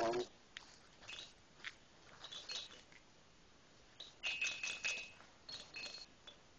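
Small bell in a plush baby toy jingling in a few short clusters of high tinkles as the toy is shaken and moved, with a brief baby grunt right at the start.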